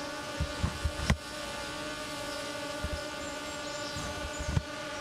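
DJI Mavic Air drone on Master Airscrew low-noise propellers hovering about 20 m overhead: a steady propeller whine made of several even tones. A few low thumps come about half a second to a second in and again around four and a half seconds.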